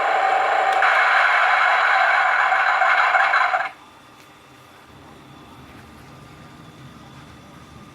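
A Heng Long TK-18 RC tank mainboard playing a loud, rattling tank sound effect through its small speaker. The effect cuts off suddenly about three and a half seconds in, leaving a faint low hum.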